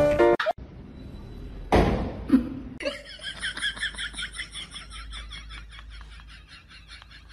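A person giggling in a rapid, high-pitched laugh of about five pulses a second, starting about three seconds in. A short burst of noise comes just before it, near two seconds in.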